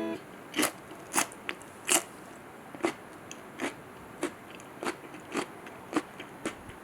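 Crunchy food being chewed: a steady run of crisp crunches, about one and a half a second, the first few loudest.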